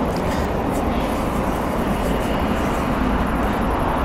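Jet engines of an AeroLogic Boeing 777F freighter running steadily at taxi thrust as the aircraft turns onto the runway: a continuous low noise with a faint steady hum.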